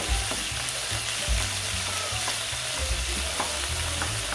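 Diced onion sizzling in hot cooking oil in a stainless steel pan, with a few short scrapes and clicks of a spatula stirring it.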